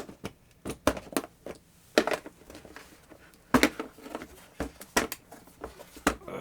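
Irregular clicks and knocks of hard plastic being handled: a rotary tool's flex shaft being worked out of its moulded plastic kit case.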